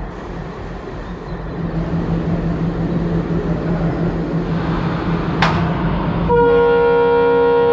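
Steady running rumble of a diesel-hauled passenger train. About six seconds in, after a sharp click, the WDG3A diesel locomotive's air horn starts a loud, steady blast of several tones at once and holds it.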